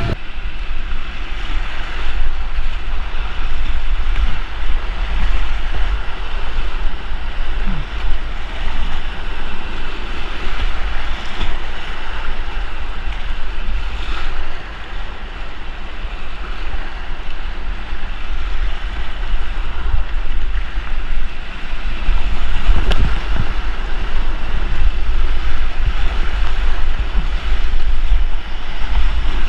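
Creek whitewater rushing steadily, with a deep buffeting rumble on the microphone.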